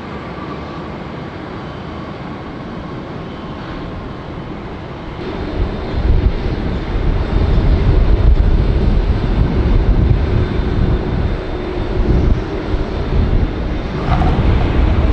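McDonnell Douglas MD-11 freighter's three jet engines running on the runway, with a steady noise that becomes a much louder deep rumble about five seconds in and stays loud as the aircraft passes.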